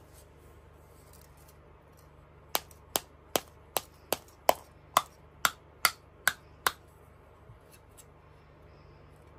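Eleven sharp, evenly spaced taps on a hollow chocolate surprise egg, about two and a half a second, as the shell is cracked open.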